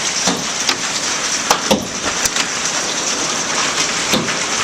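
Hailstones, quarter to dime size, pelting a glassed-in porch and its roof: a dense steady hiss of ice and rain with many sharp pops and clicks of individual stones striking at irregular intervals.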